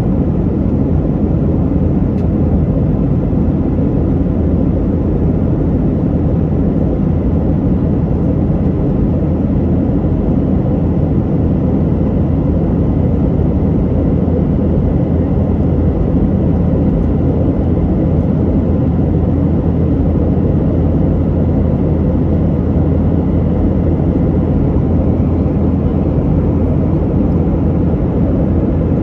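Cabin noise of a Boeing 737-900 in flight: a steady low rumble of the jet engines and rushing air, unchanging throughout.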